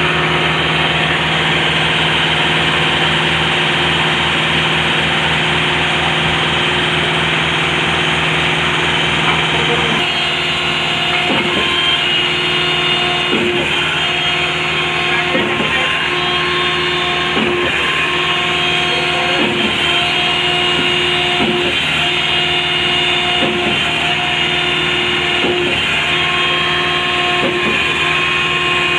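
Concrete mixer pump machine running steadily with its engine drone. About ten seconds in, a regular knock joins it, roughly every two seconds.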